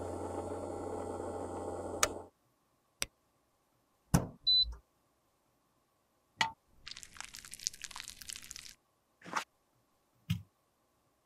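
Ultrasonic cleaner running with a steady hum and hiss, which stops after about two seconds. Then come scattered clicks and taps of handling, a short electronic beep about four and a half seconds in, a rustling hiss lasting almost two seconds, and a few more clicks.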